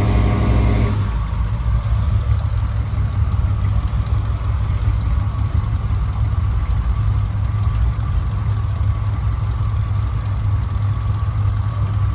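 Swamp buggy engine idling: a steady low rumble with a faint steady whine above it.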